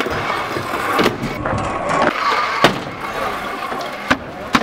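Freestyle scooter wheels rolling on concrete, with several sharp clacks of the scooter striking the ground. The loudest clack comes about two and a half seconds in.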